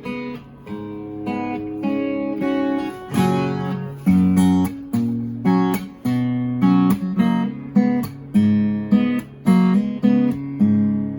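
Enya EA-X1 Pro acoustic guitar played unaccompanied: a phrase of picked notes and chords, each ringing on, growing louder about three seconds in with a strummed chord and then a steady run of plucked chords.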